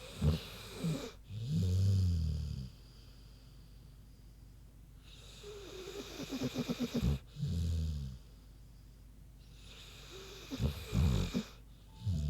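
American Bulldog snoring in sleep: three breaths about five seconds apart. Each is a rapid, fluttering rattle followed by a shorter low-pitched tone.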